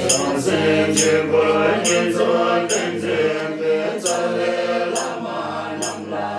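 Background music of a chanted mantra sung by several voices in slow, sustained phrases, with a steady beat of short high clicks.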